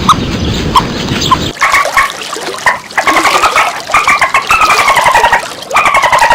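Farm animal sounds: a low, noisy stretch with clicks, then about a second and a half in, a bird calling over and over in short, slightly falling notes.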